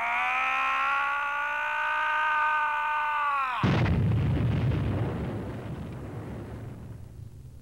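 A held whine of several stacked tones rises and then holds, cutting off abruptly about three and a half seconds in. A sudden explosion takes its place, throwing sparks, with a deep rumble that slowly fades.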